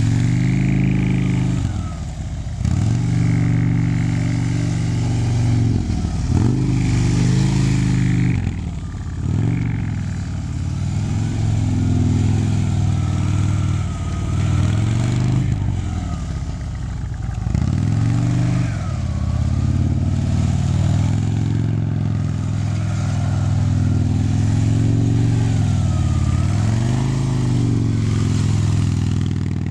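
Harley-Davidson touring motorcycle's V-twin engine at low speed, its revs repeatedly dropping and climbing again every second or two as the rider eases off and rolls on the throttle through tight cone turns.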